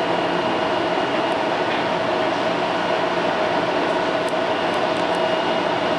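Taipei Metro C321 train car humming steadily, with a few steady tones that hold one pitch throughout.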